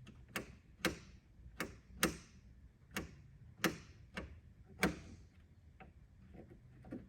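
A switch being clicked on and off repeatedly: about eight sharp, irregularly spaced clicks over some five seconds, then a few fainter clicks, while the lights fail to come on, which points to a blown fuse.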